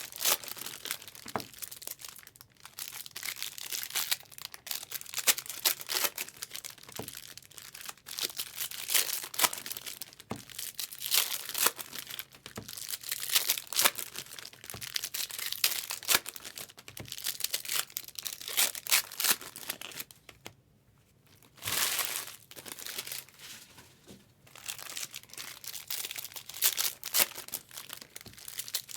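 Trading-card pack wrappers crinkling and tearing as packs are opened and handled by hand, in a dense run of crackly rustles with a short pause about two-thirds of the way through.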